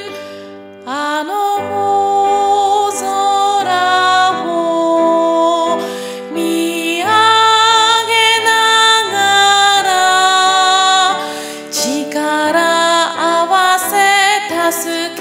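A woman singing the alto part of a Japanese choral song over a simple piano accompaniment. The sung line moves through held notes with vibrato.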